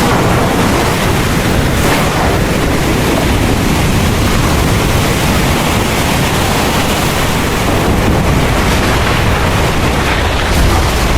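Heavy rain pouring steadily, with a deep rumble underneath.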